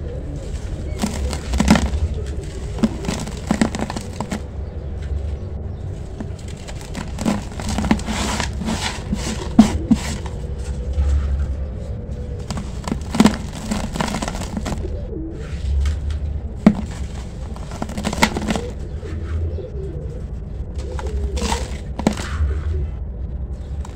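A hand scraping and swirling dry, gritty sand-cement powder around a pot, with crunchy, scratchy strokes at irregular intervals.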